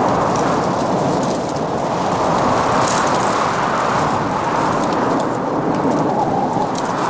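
Strong wind blowing steadily: a dense rushing noise with faint crackles scattered through it.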